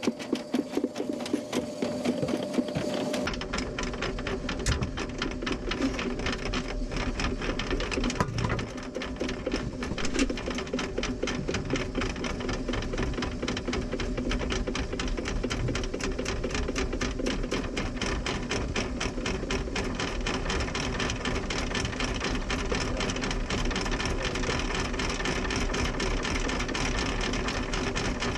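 Ridgid K9-204 FlexShaft drain cleaner running, its drill-driven cable spinning inside the kitchen sink drain pipe: a rapid, even rattle over a steady motor whine, with a low rumble joining about three seconds in.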